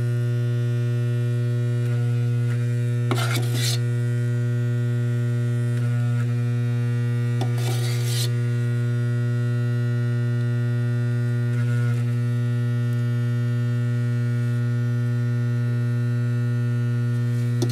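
Dental laboratory model vibrator running, a steady electric buzz while wet dental stone is vibrated into an impression. Three or four brief scrapes break in: the spatula scooping stone from the mixing bowl.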